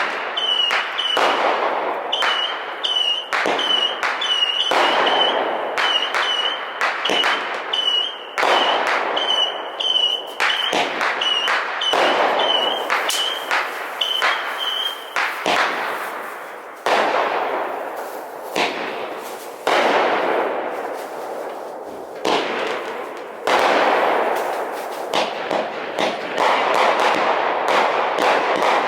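Consumer fireworks going off in rapid succession: a dense run of sharp bangs and crackling bursts. Through the first half a high, whistle-like tone sounds again and again between the bangs.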